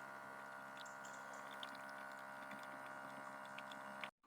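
A faint, steady hum made of several held tones, cut off suddenly near the end.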